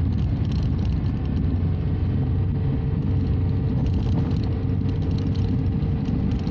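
Dual-sport motorcycle running along at a steady pace, heard from the rider's own camera: an even engine drone with a low rumble.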